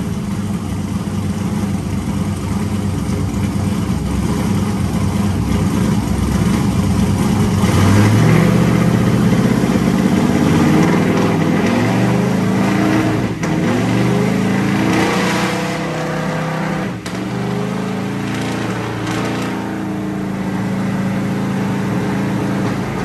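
Twin-turbo 427-cubic-inch LS V8 running on a hub dyno. It runs steady at first, then from about eight seconds in it revs up, rising in pitch and getting louder. There are short dips in the note twice, around 13 and 17 seconds, and it keeps running on after them.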